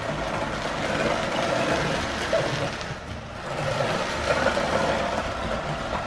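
ILIFE A8 robot vacuum cleaner running on a wooden floor, its suction motor and brushes making a steady whir, with a few brief crackles as it sweeps up spilled cereal.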